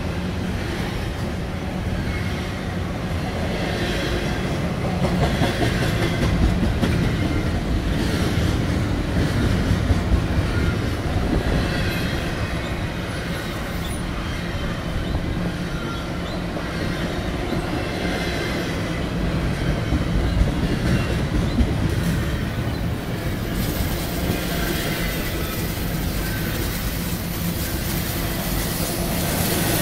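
Double-stack container well cars of an intermodal freight train rolling past close by: a steady rumble of steel wheels on rail with clicking over the joints and faint thin squeals at times. It gets hissier in the last few seconds.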